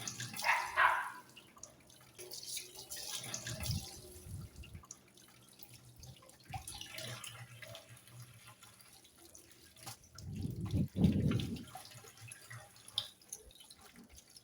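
Tap water running and splashing as raw chicken pieces are rinsed and rubbed by hand, in irregular splashes with a louder stretch about ten seconds in.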